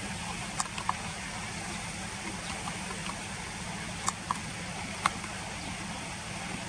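Steady background rush of a flowing river with a low hum under it, broken by a few short, sharp clicks.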